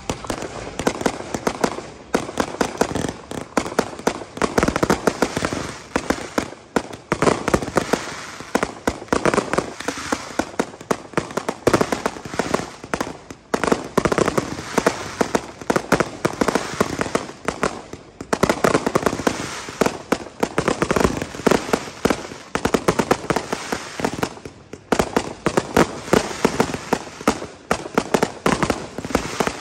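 Fireworks display: a dense, nearly continuous run of bangs and crackling from aerial shells bursting, with short lulls about 13, 18 and 24 seconds in.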